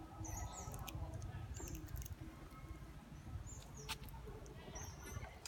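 Short high animal squeaks, one every second or so, over a steady low rumble, with a few sharp clicks.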